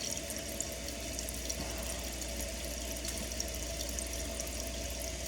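Toilet fill valve running, water hissing steadily into the tank as it refills, a sign the newly replaced valve is working.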